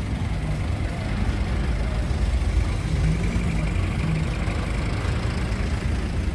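A dump truck's diesel engine running steadily as the truck pulls slowly past close by.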